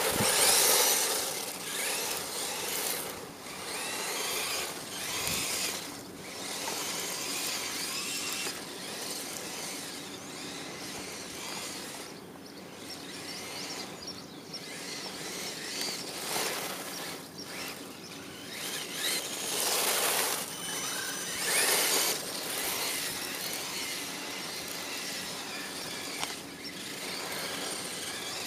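Traxxas 1/16 E-Revo radio-controlled truck's electric motor whining, rising and falling in pitch as the truck repeatedly speeds up and slows, with its tyres spraying dirt. The loudest bursts come right at the start and twice about two-thirds of the way through.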